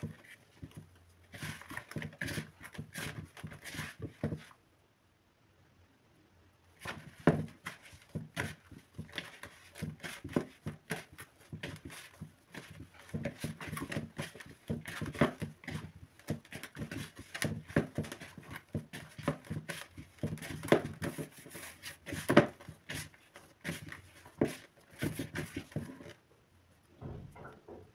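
Hands kneading half-cake dough in a plastic bowl: irregular soft squishing and pressing with dull knocks, breaking off for about two seconds around four seconds in, then going on until shortly before the end.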